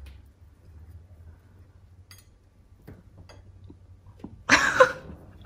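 Someone biting and chewing a firm tahini pastry: faint soft clicks of chewing, then one brief loud noise about four and a half seconds in.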